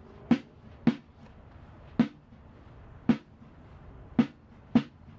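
A single drum struck alone in sharp, separate beats at a marching tempo, about one beat every half second with some beats left out, six strikes in all.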